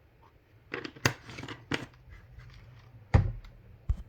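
A small spoon scraping through spice powder and knocking against a container as spices are measured out: rustling scrapes with four sharp knocks, the last two heavier.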